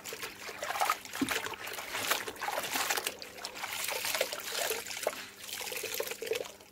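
Cloth napkins hand-washed in a plastic tub of soapy water: sloshing and squeezing, with water trickling and splashing back into the tub as they are wrung out. The water sounds stop abruptly near the end.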